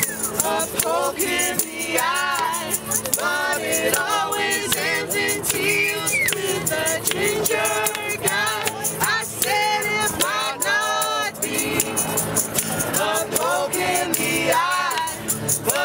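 Acoustic band playing: strummed ukulele and acoustic guitar with a shaken tambourine and hand claps, and several voices singing along.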